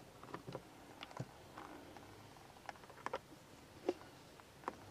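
Faint, scattered light clicks and taps of the plastic parts of a Gerni pressure-washer trigger gun being handled and fitted back together by hand.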